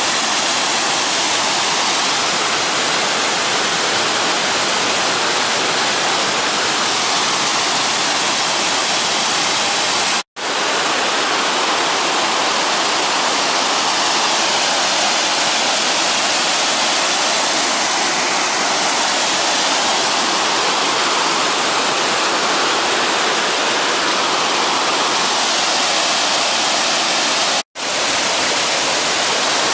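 The Mawddach Falls, a river waterfall, rushing loudly and steadily. The roar cuts out completely for an instant twice, about ten seconds in and near the end.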